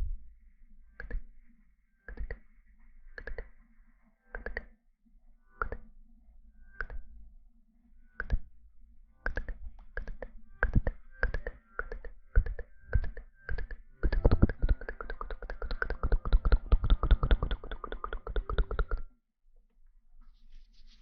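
Sharp taps or clicks, about one a second at first and coming faster after about nine seconds, then a fast run of rapid tapping for about five seconds that stops suddenly.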